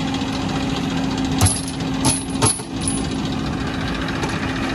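Heavy diesel engine running steadily with a fast, even rattle. A few sharp knocks stand out about one and a half to two and a half seconds in.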